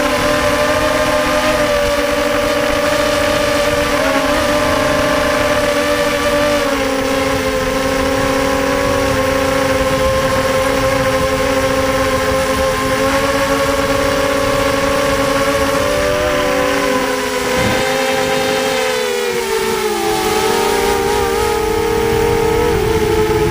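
Racing quadcopter's four brushless motors (EMAX 2204 2300kv) with 5030 props buzzing steadily in flight. The pitch wavers with throttle and drops to a lower note about nineteen seconds in.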